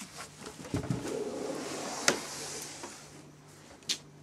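Rustling and movement of someone making their way through a cluttered room, with two sharp clicks, the first about two seconds in and the second near the end. A faint low hum comes and goes in the second half.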